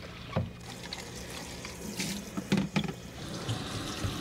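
Kitchen tap running into a plastic bowl in a stainless steel sink as the bowl is rinsed, a steady splashing wash. A few short knocks of the plastic bowl being handled sound over it.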